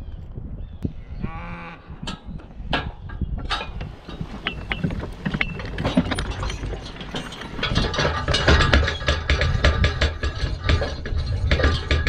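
A cow moos once, briefly, about a second in. From about eight seconds in, a dense, fast clatter of chains and metal with a low rumble: a horse-drawn forecart and wooden scoot with chains, pulled over rough, rutted pasture.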